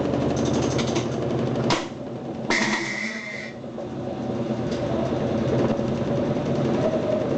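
Electrolux TOP8A top-loading washing machine spinning with a rapid, loud rattling and knocking noise, the fault shown in the video. About two seconds in the rattling drops away after a sharp click, a brief hissing squeal follows, and then the rattling builds back up.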